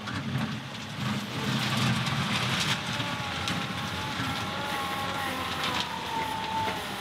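John Deere 2038R compact tractor's diesel engine running as it drives into loose gravel and pushes its loader bucket into the pile, with scattered clicks of stones.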